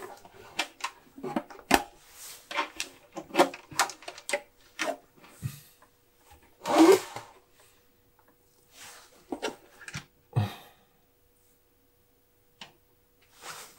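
Handling noise from a plastic electronic scale housing and a power bank with its USB cable being moved and set down: a quick run of clicks and knocks, then a louder scrape about seven seconds in and another near ten seconds, before it goes quiet. A faint steady hum sits underneath.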